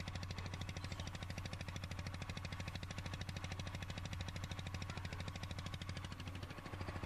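A boat's engine running steadily, heard faintly, with a fast, even beat and a low hum.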